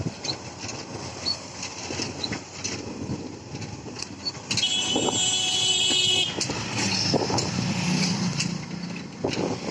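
Street traffic: motor vehicles running and passing, with a high-pitched vehicle horn held for nearly two seconds about halfway through.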